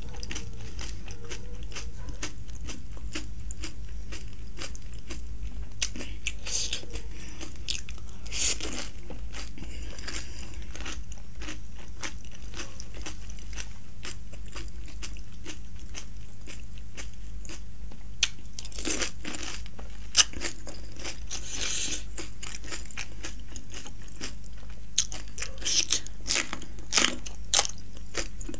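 Close-miked eating sounds: chewing and crunching a mouthful of pani puri. Near the end comes a cluster of sharper crunching bites into a raw green chilli. A steady low hum runs underneath.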